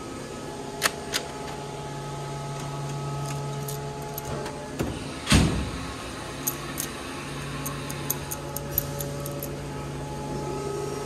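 Hand tools clinking and knocking against metal parts during the dirt bike's teardown: a couple of sharp clicks near the start, a loud knock about five seconds in, then a string of small light ticks, over a steady low hum.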